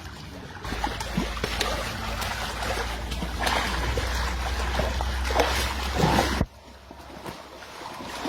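Water splashing and trickling over a low steady rumble. The rumble and the splashing cut off suddenly about six and a half seconds in, leaving quieter trickling.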